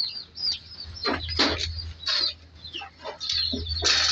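Chickens clucking, a string of short, separate calls with some high chirps among them.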